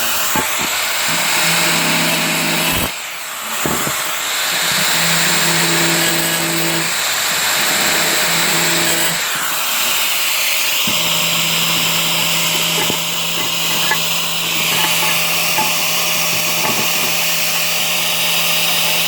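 Makita angle grinder running and grinding into a ceramic tile. It eases off briefly about three seconds in, and about halfway through the cut shifts to a higher hiss.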